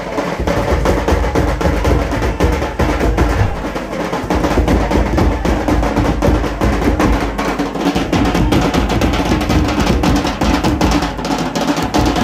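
Folk drums, a steel-shelled barrel drum and a large kettle drum, beaten with sticks in a fast, continuous rhythm.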